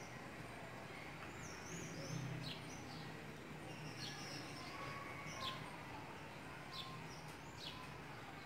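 Small birds chirping: short, high, falling chirps repeated every second or so, over a faint low hum.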